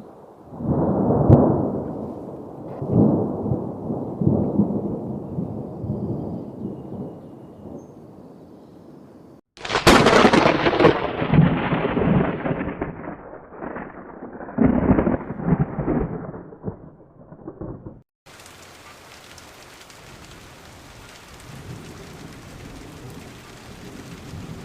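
Thunderstorm: thunder rumbling in several rolling peals, then a sudden close thunderclap about ten seconds in that trails off into long rumbling. In the last part, steady heavy rain hisses, with thunder rising again near the end. The sound jumps abruptly between parts twice.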